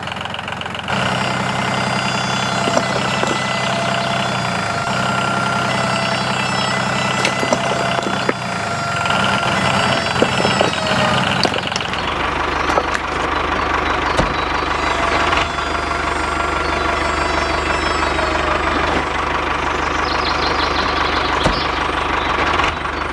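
Tractor engine running steadily at idle, its tone shifting abruptly about a second in and again about twelve seconds in.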